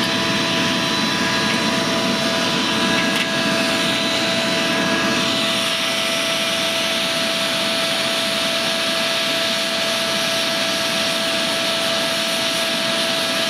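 Electric blower running steadily, a constant whine over a rush of air, forcing a draft into a charcoal fire to build its heat.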